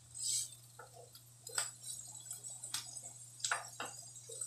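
Wooden spatula scraping and tapping against a non-stick frying pan while mushrooms and carrots are stir-fried: a handful of irregular clicks and scrapes over a low steady hum.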